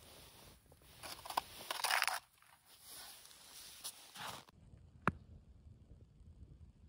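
Irregular rustling, crinkling and scraping as an ice-fishing tip-up is handled and set over a hole in the ice, with jacket fabric rustling; the loudest rustle comes about two seconds in. After an abrupt change the sound drops to a faint low rumble with a single sharp click.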